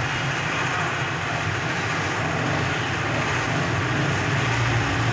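Small motorcycle engines running in a busy street, a steady low hum under a wash of street noise.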